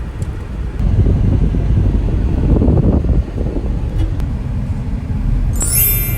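Steady, low rumbling noise, louder from about a second in. A high ringing pitched sound comes in near the end.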